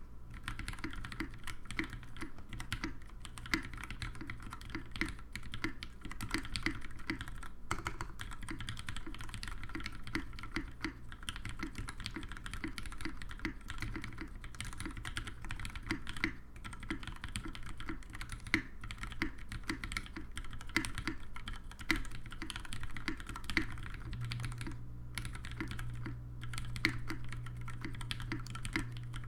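Continuous typing on a Singa R1 WKL mechanical keyboard with retooled Cherry MX Black linear switches, lubed with Krytox 205/105, on a brass plate: a steady run of rapid keystrokes. A steady low hum sits underneath, a little stronger in the last few seconds.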